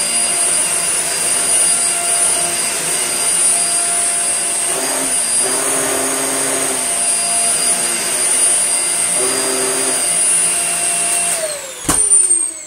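Dyson Small Ball upright vacuum cleaner running steadily with a high whine. Near the end it is switched off and the motor's pitch falls as it spins down, with a sharp click.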